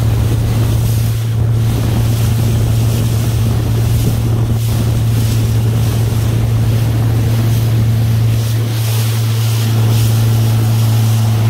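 Boat engine running at a steady pitch, with wind buffeting the microphone and the rush of water.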